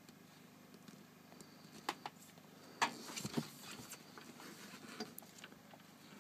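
Faint scattered clicks, knocks and scuffs from hands working at solar panel cable connectors on the rail and a body shifting about on the roof, the loudest knocks about three seconds in.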